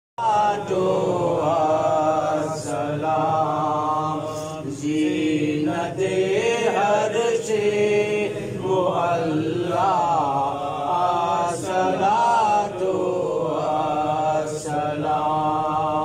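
A man chanting into a microphone: a melodic line of long held, wavering notes with short pauses for breath.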